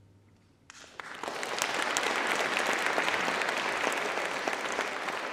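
Audience applause breaking out after a brief hush under a second in, quickly swelling to steady clapping.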